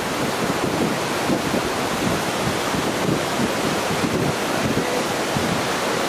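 Waterfall's falling water rushing steadily at its base, with gusts of wind and spray buffeting the microphone.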